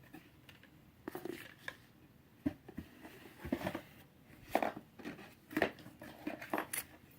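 Box contents and packaging being handled: irregular rustling, crinkling and light knocks, with a few sharper crackles.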